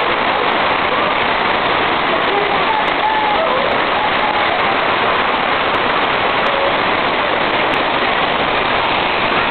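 Loud, steady rush of a waterfall's falling water, with faint voices calling through it now and then.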